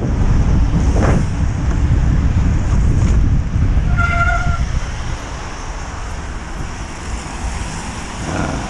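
Wind buffeting the microphone of a mountain biker's action camera while riding, easing after about three seconds, over road traffic noise. About four seconds in, a short steady beep sounds once for about half a second.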